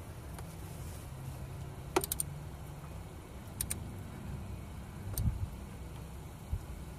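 A few short metallic clicks from a ratcheting socket driver as the distributor's mounting bolts are snugged up: three in quick succession about two seconds in, two more a second and a half later, and one near five seconds, over a low steady background rumble.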